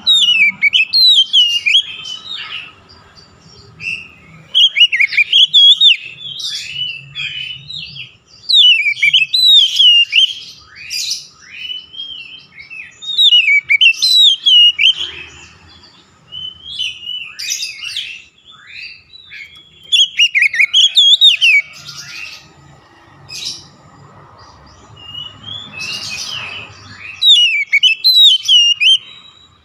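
Oriental magpie-robin (kacer) singing loud, rapid phrases of varied whistles and sweeping notes, several of them falling in pitch, in bursts every few seconds with short pauses between.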